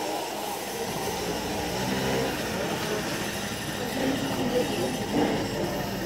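Busy market-alley ambience: indistinct chatter of many passers-by and stallholders over a steady crowd hubbub, with nearer voices coming up in the second half.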